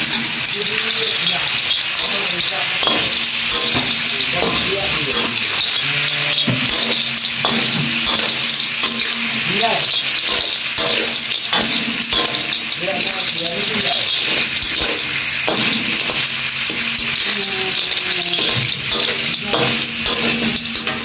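Small snails stir-frying in hot oil in a wok: a steady sizzle, with a metal spatula repeatedly scraping and knocking against the pan as they are turned.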